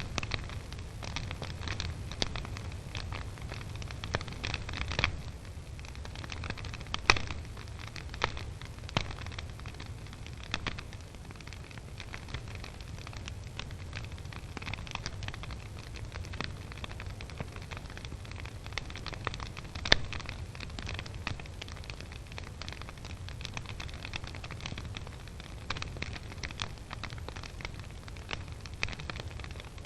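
Wood fire burning in the firebox of a brick fireplace-stove: constant irregular crackling over a steady low rumble, with two louder sharp pops, one about a quarter of the way in and one about two-thirds in.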